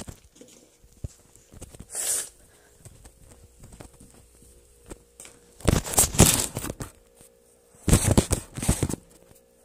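Rubbing and handling noise on a phone's microphone as it is moved and pressed against skin and clothing: three rough bursts of scraping, a short one about two seconds in and two longer ones around six and eight seconds.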